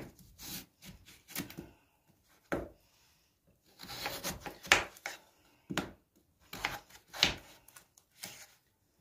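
Kitchen knife cutting a peeled potato into chunks on a bamboo cutting board: a string of irregular knocks as the blade goes through and meets the wood, with some slicing and scraping.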